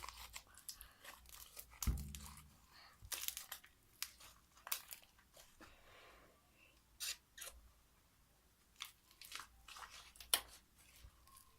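Hands squeezing and stretching a small lump of fluffy slime made with glue and shaving foam, giving faint scattered crackles and little pops, with one soft thump about two seconds in.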